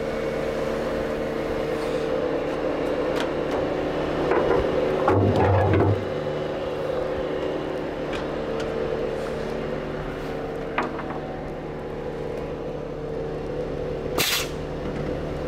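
Scania truck's diesel engine idling steadily while the lowbed trailer's detachable gooseneck is uncoupled. A louder rumble lasts about a second and a half around five seconds in, and a short sharp hiss of air comes near the end.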